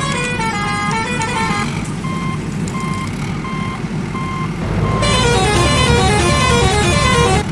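Electronic sound effects of a battery-powered toy vehicle: a beeping tune and a repeating reversing-style beep, about one and a half a second, over a steady low engine rumble. The rumble and the tune get louder about five seconds in.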